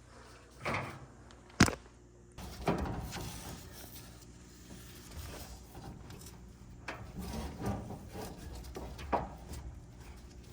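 Hands-on work on a dryer being taken apart: irregular knocks and scraping of parts being handled, with one sharp click about a second and a half in and a few duller thumps.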